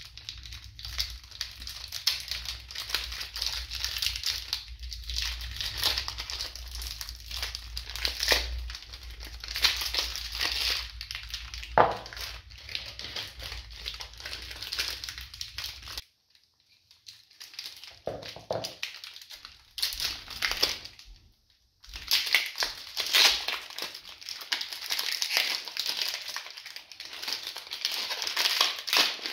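Clear plastic wrapping crinkling as soap bars are unwrapped and handled. Partway through it stops for a few seconds of quiet with a few soft handling sounds, then the crinkling starts again.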